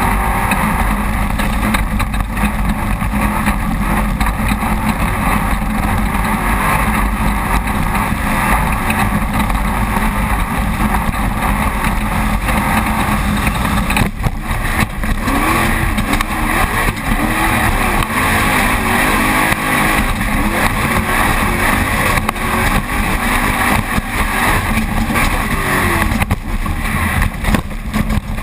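Engine of a Jimco Class One off-road race car running hard, heard from inside the cockpit, its pitch rising and falling as the driver works the throttle, over a constant loud rush of noise.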